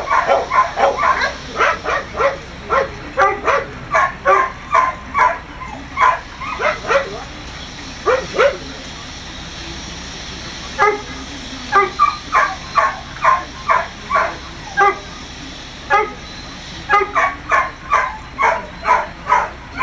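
A dog barking in quick, sharp yips, about three a second, in runs of several seconds broken by short pauses.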